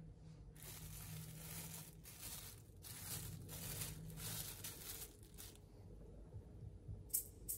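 Faint rustling and crinkling handling noise, in a series of soft swells, followed by a few light clicks near the end.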